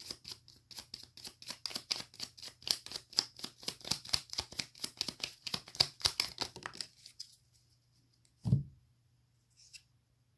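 Tarot cards being shuffled by hand: a quick, even run of card flicks, about six a second, that stops a little under 7 seconds in. A single soft thump follows near the end.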